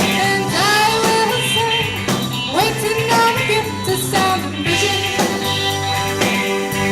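Live rock band playing a song, with a voice singing sliding notes over bass, guitar, synth and drums.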